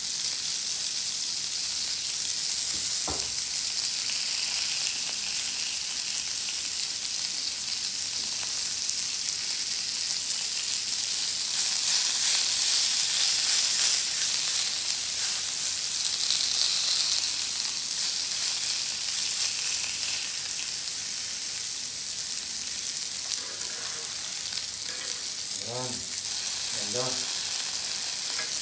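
Kingfish steak sizzling in olive oil on a hot ridged grill pan: a steady frying hiss that swells for a few seconds around the middle, with a fork touching the fish.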